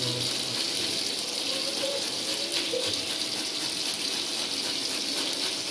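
Half a cabbage being grated on a handheld perforated stainless steel grater: a rough, repeated rasping scrape. Underneath is a steady hiss, fitting beef patties frying in oil on a griddle.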